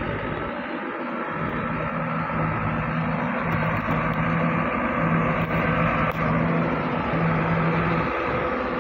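Diesel engine of a small dump truck loaded with acacia logs, working hard as it climbs a steep dirt track, with a steady high whine above the engine note. It gets a little louder about two seconds in as the truck comes closer.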